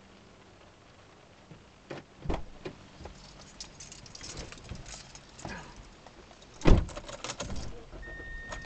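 Clinking and rattling inside a parked minivan's cabin, starting with a few sharp knocks about two seconds in, with one heavy thump near the end that is the loudest sound.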